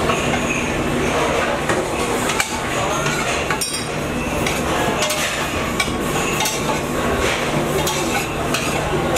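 Clinking and clatter of dishes and utensils at a busy buffet serving counter, many small clicks over a steady hum.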